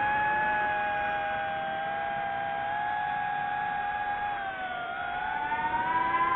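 FPV quadcopter's electric motors and propellers whining steadily, the pitch climbing over the last second or so as the throttle opens.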